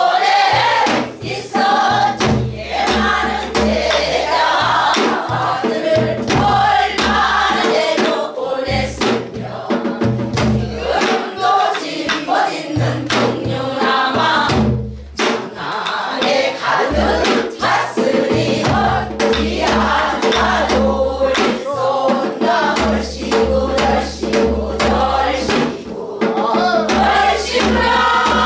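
Mixed choir of men and women singing a Namdo folk song (namdo minyo) in unison, accompanied by strokes on a buk barrel drum. Near the end the voices hold one long loud note together.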